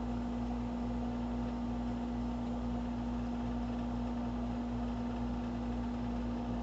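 A steady low hum: one strong, unchanging tone over a faint even hiss and rumble.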